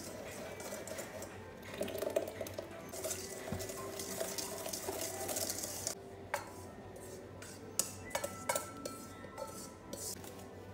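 Wire whisk beating and scraping in a stainless steel mixing bowl, then several sharp metal clinks as the whisk and bowl are knocked together to tip the dry ingredients into a second steel bowl.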